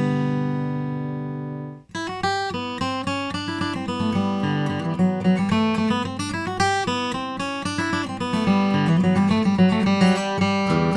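Taylor 314 acoustic guitar, Sitka spruce top with sapelli back and sides, being played: a chord rings and fades, is damped abruptly just under two seconds in, then a quick run of picked notes and chords follows.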